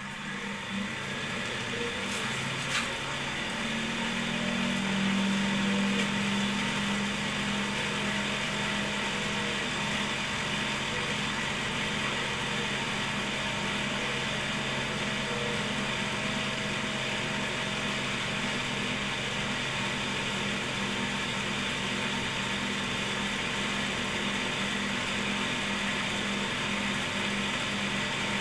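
Cotton candy machine's DC electric motor running steadily, spinning the head with a steady hum and whir. It grows louder over the first few seconds, then holds an even pitch.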